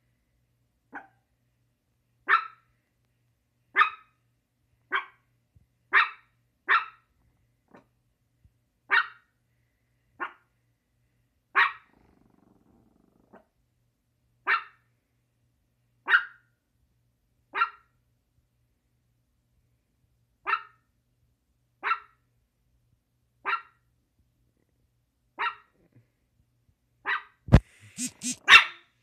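Chihuahua barking single sharp barks, one every second or two. Near the end comes a thump and a quicker run of barks.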